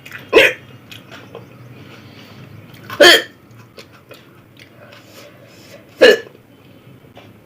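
Hiccups, three short sharp ones evenly spaced about three seconds apart.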